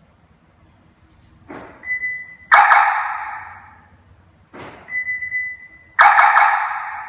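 Hollywood Siren III answer-back kit playing its 'Arrow 3' sound twice: each time a quick rising whoosh, a short steady whistle, then a sharp strike that rings and fades over about a second and a half. This is the siren's answer-back signal, which confirms a remote keyless lock or unlock.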